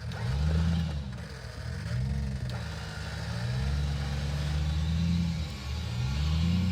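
Off-road vehicle's engine revving up and easing off repeatedly as it is driven over rough terrain, about four swells of throttle, one longer held in the middle.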